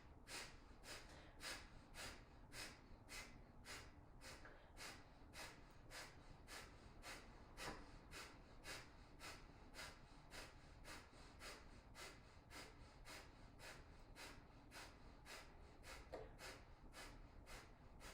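Kapalabhati breathing: short, forceful exhales through the nose, each pumped out by the belly, in a steady rhythm of a little under two puffs a second. The puffs are faint.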